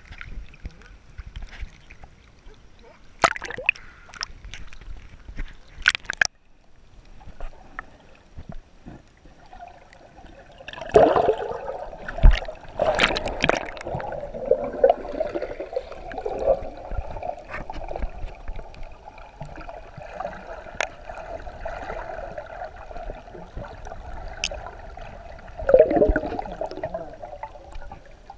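Water splashing and sloshing around a hand-held action camera at the snorkelling surface, with sharp splashes in the first few seconds. From about a third of the way in the sound is muffled and underwater, a steady hum with bubbles and small clicks, and another splash near the end.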